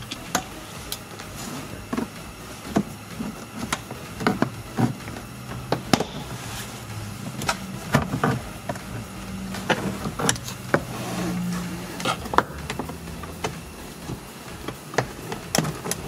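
Hard plastic interior trim panel being handled and pulled at by hand while it is still held by clips, giving irregular sharp clicks, knocks and small rattles.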